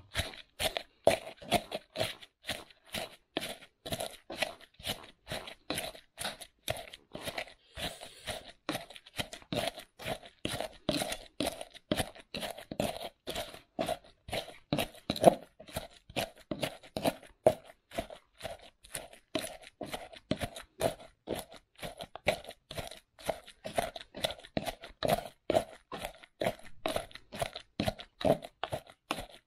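Pestle (ulekan) grinding fried sambal ingredients with salt and MSG in a mortar (cobek), crushing them in even, rapid strokes about three a second.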